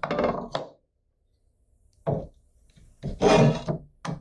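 Aluminium scrap plate handled and set down on a wooden tabletop: a series of separate knocks and scraping clunks, the loudest about three seconds in.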